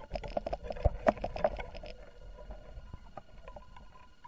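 Muffled underwater sloshing and rapid knocking as a hooked crucian carp is drawn up through the water, heard from below the surface. The knocking thins out after about two seconds, leaving faint ticks.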